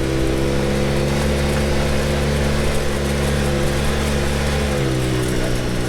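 Engine of an off-road trail vehicle running steadily under way, heard close from the driver's seat, its pitch easing down slightly near the end.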